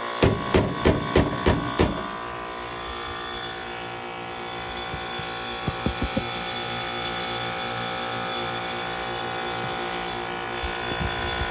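Heat pump outdoor unit running with a steady hum while its iced-up coil thaws. In the first two seconds there is a quick run of about seven sharp knocks as a hand taps at the frozen cabinet, with a few faint clicks about six seconds in.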